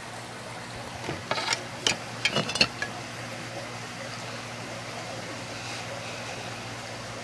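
A cluster of small clicks and light glass clinks from a glass hand pipe and a small glass jar being handled while a bowl is packed, over a steady low hum.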